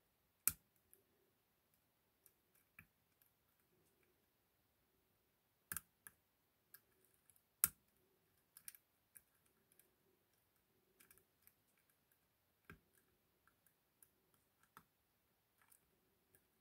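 Scattered small metallic clicks and ticks of a lock pick working inside an ASSA 6000 lock cylinder, irregular and mostly faint, with a few sharper clicks about half a second in, near six seconds and near seven and a half seconds.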